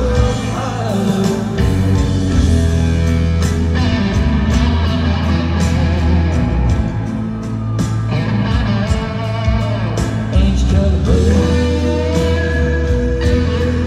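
A live band playing amplified country-rock through a concert PA, with a lead guitar playing bending lines and a long held note near the end over drums and bass, heard from the audience.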